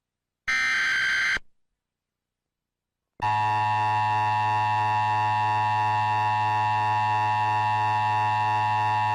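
The last of the three bursts of an Emergency Alert System SAME data header from a Texscan MSI EAS unit: a harsh digital warble lasting about a second. After about two seconds of silence, the EAS attention signal starts about three seconds in: a loud, steady two-tone alert tone of 853 and 960 Hz that holds without a break.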